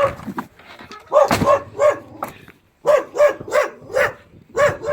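A dog barking, a quick series of short barks, about two a second.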